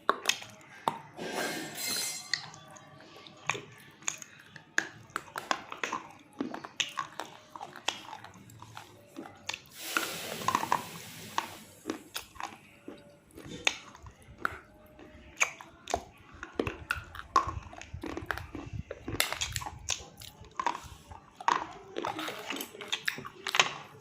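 Close-up biting and chewing of hard, brittle chalk-like mineral pieces: a dense run of sharp, irregular crunches.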